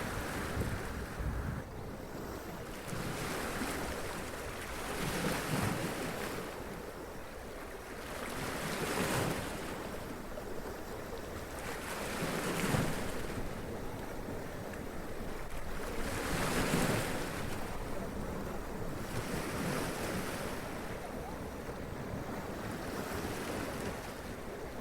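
Sea waves washing up against rocks and splashing, in surges every three to four seconds over a steady surf hiss.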